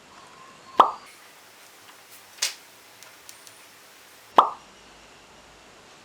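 Two sharp plop-like clicks with a quick falling pitch, about three and a half seconds apart, with a softer hissing tick between them.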